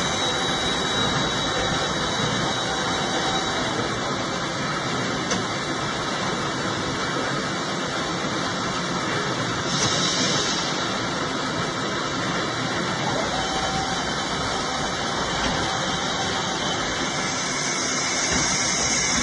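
Heavy industrial machinery running with a continuous, even noise. There is a brief high hiss about ten seconds in.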